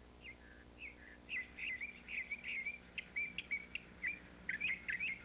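Bird chirping: a quick string of short, high chirps, sparse at first and busier after about a second.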